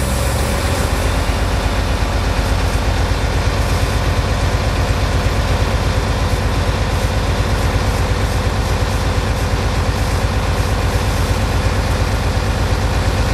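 Heavy highway truck's diesel engine idling steadily, heard from inside the cab, with the air brake system built up to maximum pressure.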